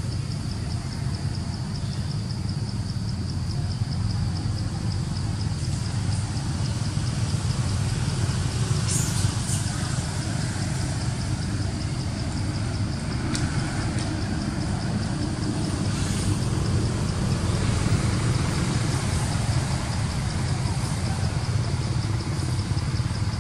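Steady low rumble of an idling vehicle engine, with a faint high rhythmic pulsing over it.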